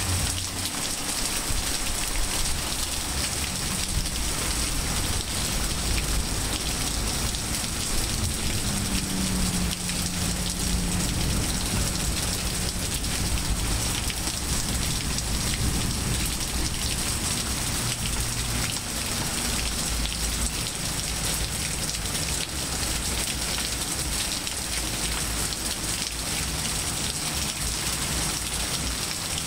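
Steady rain falling on grass, tree leaves and wet pavement: an even hiss with a fine patter of drops.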